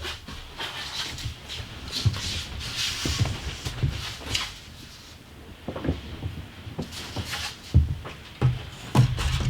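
Irregular wooden knocks, clunks and scrapes of things being handled and shifted in a small room, with several heavier thumps near the end.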